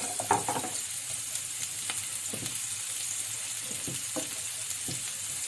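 Onion frying in olive oil in a pan, a steady sizzle with a few scattered light clicks and scrapes.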